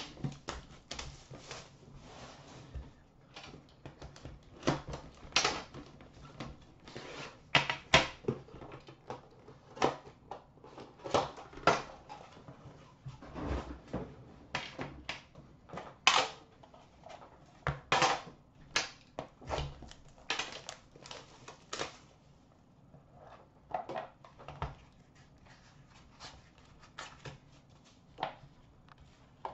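Cellophane wrap being torn and crinkled off a metal hobby-box tin, then the tin and its lid being handled and set down, with its contents lifted out. The sound is an irregular string of crinkles, rustles and sharp clicks that thins out over the last several seconds.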